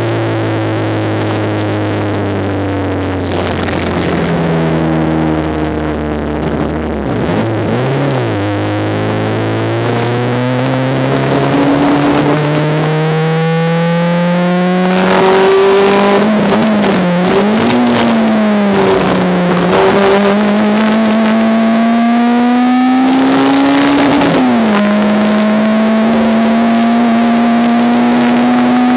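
Honda Civic race car engine heard from inside the car on a lap. It holds steady revs at first, and the revs drop sharply about seven seconds in. It then climbs under acceleration, rises and falls a few times in the middle, drops suddenly with a gear change past the twenty-second mark, and climbs slowly again near the end.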